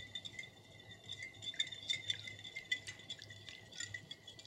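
A whisk clinking lightly against a bowl as oil is whisked into vinegar to emulsify a vinaigrette. It sounds as faint, irregular small clicks.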